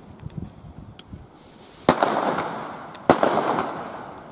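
Funkelpetarden (sparkling petard firecrackers) going off on a street: a few small pops, then two sharp bangs a little over a second apart, each trailing off over about a second.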